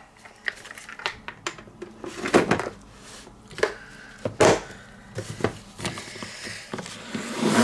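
Plastic salad spinner being handled as its lid is fitted: a series of separate hollow plastic knocks and clacks. A steady whirr builds near the end as the spinner starts to turn.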